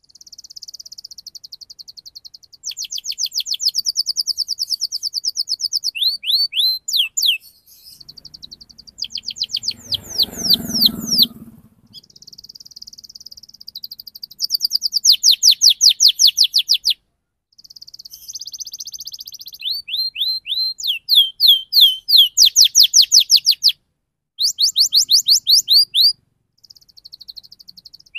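Domestic canary singing a fast, continuous rolling song. Long rapid trills of evenly repeated high notes alternate with quick downward-sweeping chirps, in phrases broken by brief pauses.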